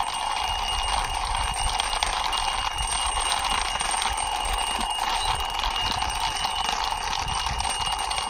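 Plastic toy police helicopter pushed by hand along a rough concrete wall. Its wheels and toy mechanism give a steady, rapid rattling buzz that stays even throughout.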